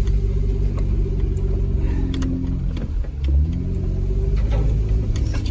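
Jeep JK Wrangler's V6 engine running at low revs as it crawls a trail in four-wheel-drive low range. About three seconds in, the engine note dips briefly and then rises again.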